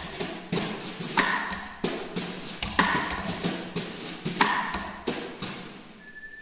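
Two snare drums struck with mallets in an interlocking rhythm: sharp hits, each followed by the rattle and ring of the snare wires, coming about every half to three-quarters of a second. The hits thin out near the end, where a steady high tone begins.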